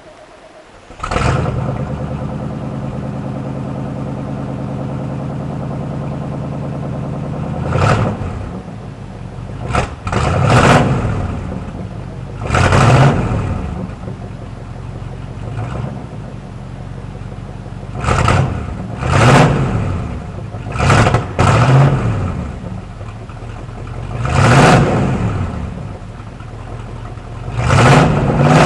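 Chevrolet K15 pickup engine starting about a second in after sitting unused for a month, then settling into a steady fast idle through its exhaust. From about eight seconds on it is revved in a series of short blips, each rising and falling back to idle.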